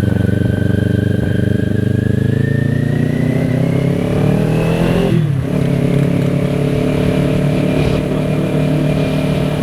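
Kawasaki Ninja 400's parallel-twin engine pulling under acceleration, its pitch rising steadily for about five seconds. About five seconds in the pitch drops sharply as the rider shifts up a gear, then holds steady.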